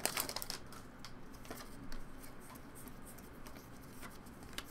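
Faint handling of trading cards from a freshly opened booster pack: a few soft clicks and slides as the cards are sorted, with a sharper click near the end.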